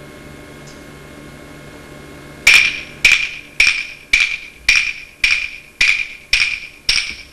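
A stage clock striking nine times, starting about two and a half seconds in. The strokes come at an even pace, a little under two a second, each one sharp and ringing on with a bright, high tone.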